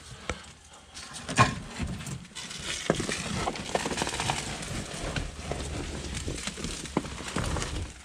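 Old car carpet being pulled up and bunched out of the floor: irregular rustling and scraping with scattered knocks and clicks of handling.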